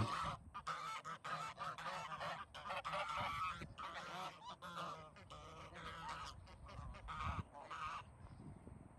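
A flock of domestic geese honking in many short, overlapping calls, a constant clamour of complaint that thins out near the end.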